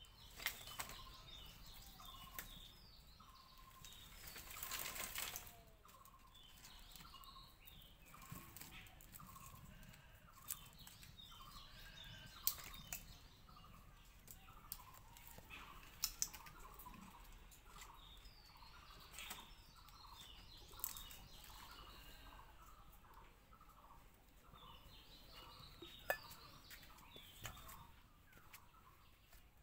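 Birds chirping with many short, repeated calls, faint throughout. Scattered sharp clicks, and a brief rustling scrape about four seconds in.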